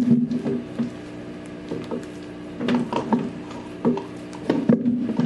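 Utensils stirring and scraping slime in plastic cups, with irregular clicks and knocks of the stirrers against the cup sides and a wet squish of slime being worked.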